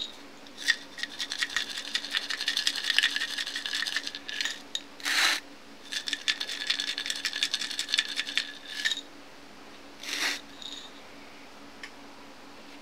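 Fast, dense metallic rattling with a steady ringing tone underneath, in two runs of about four and three seconds, and a short swish between them and another a second after the second run.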